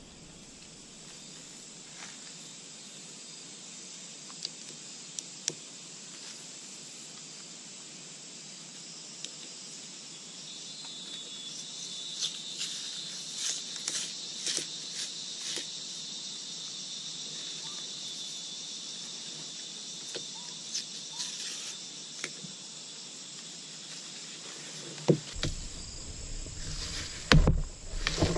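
Steady high buzzing of forest insects, with scattered small cracks as bark is peeled off a branch by hand. A few louder knocks near the end.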